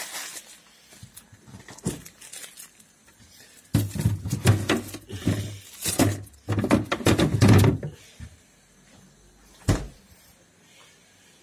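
Freezer drawer being opened and rummaged through, with plastic containers and bags knocking and rustling in two loud spells, then a single thump near the end.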